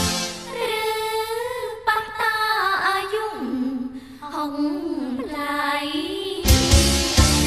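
Khmer pop song: a woman sings over a thin, sustained backing with the drums and bass dropped out. The full band comes back in with a beat about six and a half seconds in.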